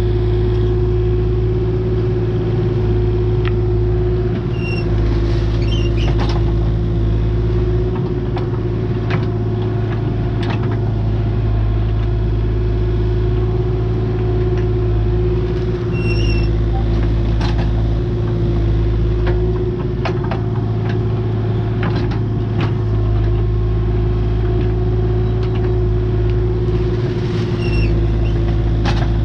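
Excavator engine running steadily under load, with a constant whine above the engine hum. Scattered clicks and clanks from the machine and its bucket work the ground.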